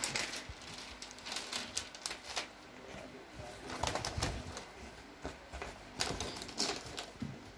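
Scattered light clicks, taps and rustles of cardboard packaging being handled and shifted about.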